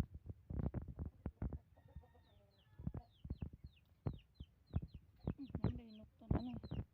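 Small chicks peeping in a quick run of high, falling chirps, with a hen clucking near the end, over a scatter of light taps and knocks.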